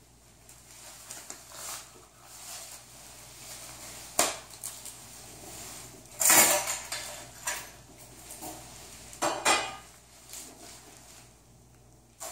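Metal medical instruments and supplies being handled and set down, irregular clinks and rustles, with louder clatters about four, six and nine seconds in.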